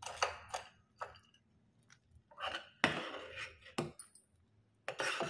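Metal ladle stirring sabudana kheer in a metal saucepan: about six irregular strokes of scraping and clinking against the pan, with wet squelches of the thick milk and tapioca pearls.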